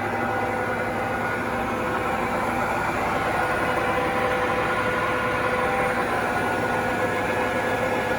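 TOS SUI 63 engine lathe running under power: a steady mechanical hum with several steady whining tones from the running machine.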